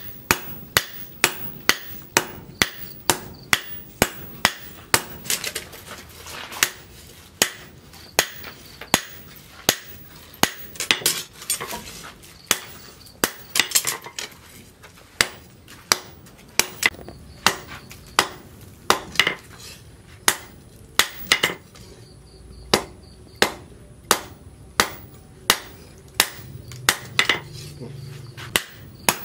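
Hammer blows on a red-hot steel machete blank, forged from a sprocket and lying on a steel anvil post. The strikes come at a steady pace of about two a second, each with a short metallic ring, broken by a few brief pauses.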